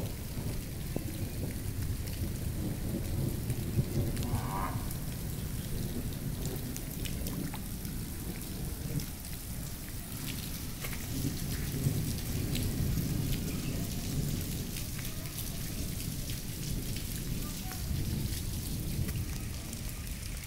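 Moderate rain falling on the ground and roofs: a steady patter with scattered drop ticks over a low rumble that swells and fades.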